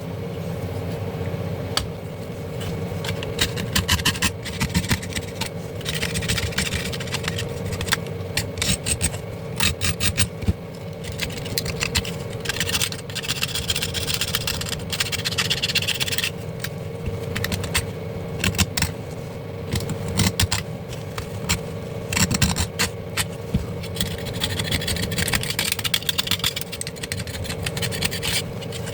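Repeated scraping and rubbing with scattered sharp clicks, as dust and grime are cleaned off a garment steamer's heater boiler. A steady hum runs underneath.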